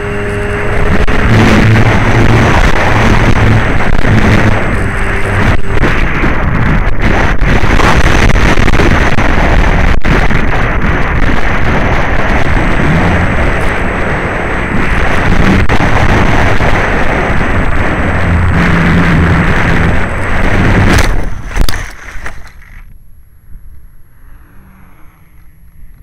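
Wind rushing over the onboard camera microphone of a Flyzone Calypso RC plane in flight, with its electric motor and propeller running underneath. About 21 seconds in there is a sharp hit as the plane comes down into tall grass, and the rushing noise cuts off, leaving only faint sound.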